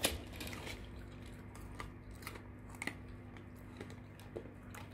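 Alaskan Malamute puppy chewing a raw green bean: a handful of crisp, scattered crunches, the loudest right at the start.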